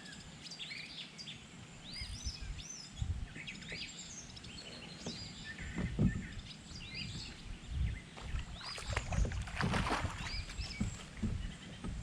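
Water splashing and knocks against a kayak hull as a hooked largemouth bass is fought and brought aboard, loudest about nine to ten seconds in, with songbirds chirping all through.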